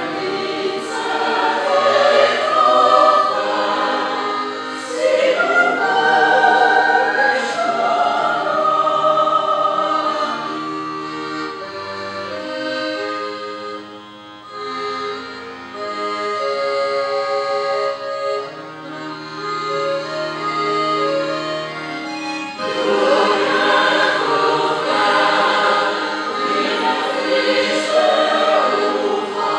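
A choir singing a Swiss song with instrumental accompaniment. About eleven seconds in the voices stop and the accompaniment plays on alone in held, stepping notes. The choir comes back in about twenty-three seconds in.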